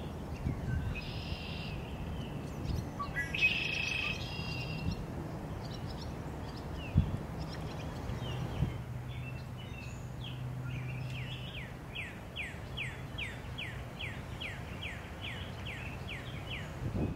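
Bird calls over a steady low outdoor rumble: two short chirpy bursts in the first few seconds, then from about two-thirds of the way through a run of quick down-slurred whistled notes, about three a second.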